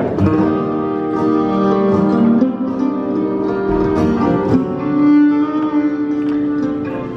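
Bluegrass string band playing live: fiddle, mandolin, banjo, acoustic guitar and upright bass. The full band comes in together right at the start, with held bowed fiddle notes over plucked strings.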